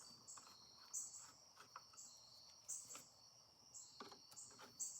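Faint crickets chirping in short, high, repeating bursts, with a few light clicks.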